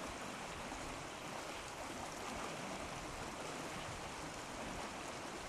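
Faint steady rush of shallow flowing water, with no distinct splashes.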